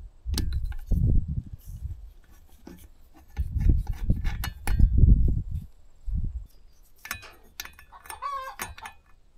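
Hands handling a chainsaw's spark plug and plug lead: sharp plastic and metal clicks with low thuds and rubbing as the plug is fitted into its boot and held to the engine for a spark test. A short clucking call, like a hen's, near the end.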